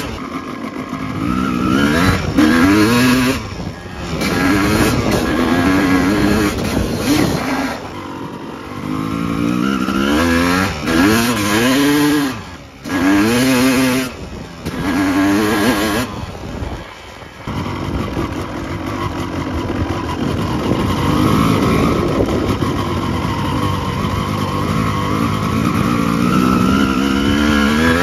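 1974 Arctic Cat Cheetah snowmobile's two-stroke twin engine being revved over and over, its pitch swinging up and down with brief drops near the middle. For the last ten seconds or so it runs steadier, its speed slowly climbing.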